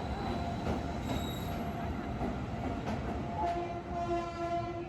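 A train running through a railway station: a steady rumble with a thin pitched tone held over it, joined about three and a half seconds in by a second, lower pitched tone.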